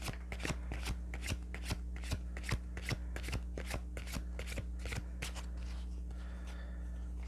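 Tarot cards being shuffled by hand: a quick, even patter of card flicks, about four a second, that pauses briefly near the end. A steady low hum runs underneath.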